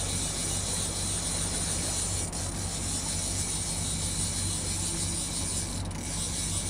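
Boat motor running steadily at low trolling speed, a constant low hum with a broad hiss over it.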